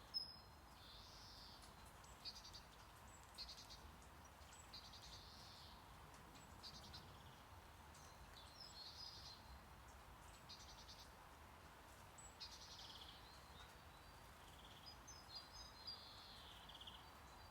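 Faint background nature sounds: short bird-like chirps and trills recurring every second or two over a low, steady brown-noise hiss, with a soft click right at the start.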